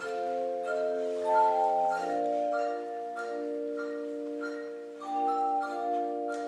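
Handbell choir ringing a piece: chords struck and left ringing, changing every couple of seconds, with single higher melody notes ringing out above them.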